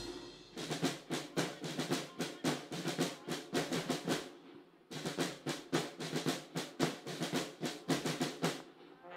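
Military band snare drums beating a steady, rapid march cadence, with a short break about halfway through.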